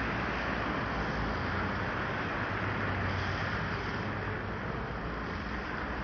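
Steady road traffic noise: cars moving slowly on a wet road.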